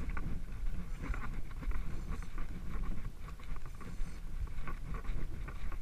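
Wind buffeting the action camera's microphone: a steady low rumble, with scattered light ticks and clicks over it.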